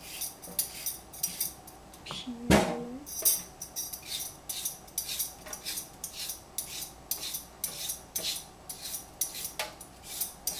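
Vegetable peeler scraping along a cucumber in quick repeated strokes, about three a second, with one louder knock about two and a half seconds in.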